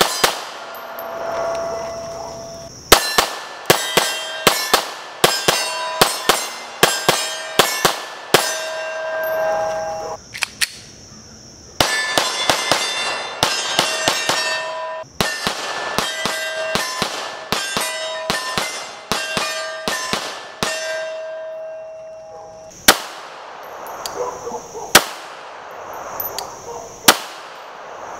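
Glock Gen 5 9mm pistol with a threaded match barrel firing fast strings of shots, several a second, with a metallic ringing tone lingering after each string. Three single shots about two seconds apart near the end.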